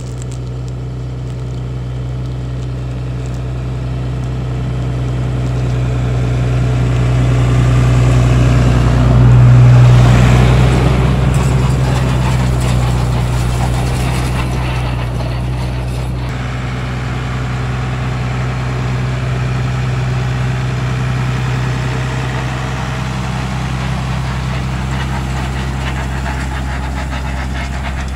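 Tractor engine running steadily as it pulls a hay rake through cut hay. It grows louder as it comes close, peaks about ten seconds in, then eases off a little.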